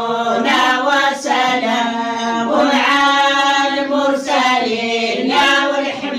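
Voices chanting an Islamic devotional prayer (dhikr) together in a slow melodic line, phrase after phrase over a steady held low note.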